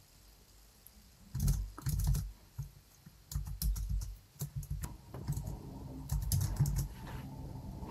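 Typing on a computer keyboard: irregular runs of quick keystrokes, starting about a second and a half in.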